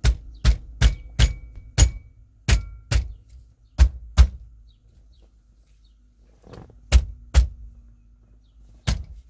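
A 2004 Toyota 4Runner steering wheel being struck about a dozen times, mostly in quick pairs with a pause in the middle, to knock it loose. The wheel is stuck on the steering shaft once its retaining nut is off.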